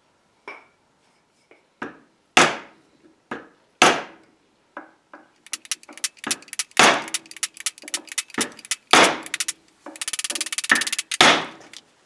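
Hammer blows on wood, striking a wooden dowel held upright on the block atop an antique pedestal table base: a couple of single sharp knocks, then a quick run of strikes and a fast rattling flurry near the end.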